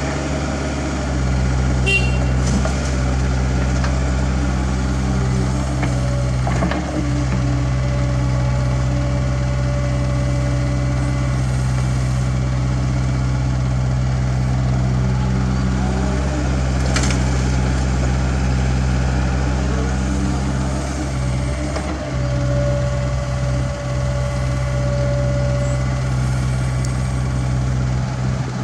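CAT 305.5E2 mini excavator's diesel engine running steadily under hydraulic load as it digs soil and swings it into a dump truck, its note dipping briefly a few times. A few short knocks stand out, about two, seven and seventeen seconds in.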